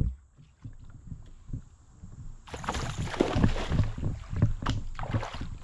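Water splashing and churning, starting suddenly about halfway through, as a hooked bass thrashes at the surface near the bank.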